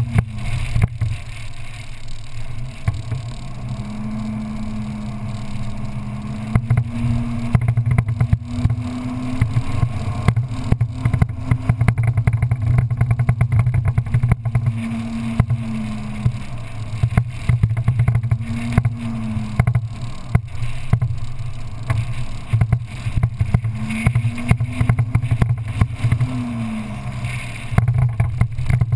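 Off-road vehicle engine driving fast on sand tracks, its pitch rising and falling several times as it revs up and eases off. Under it run a heavy low rumble and frequent knocks and rattles from the bumpy ride.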